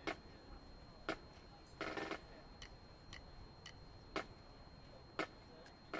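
Faint, regular ticking: a sharp tick about once a second with fainter ticks between, and a short rattle about two seconds in and again near the end.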